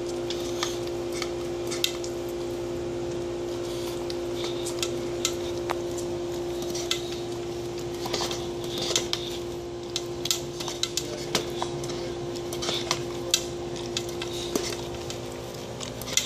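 Welsh corgi licking an already-clean plastic food bowl over and over: irregular wet clicks and knocks of tongue and bowl, busier from about halfway through, over a steady low hum.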